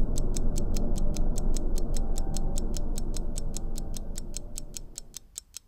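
Rapid, even ticking, about five ticks a second, over a dense low drone. The drone fades out over the last second or so while the ticking carries on.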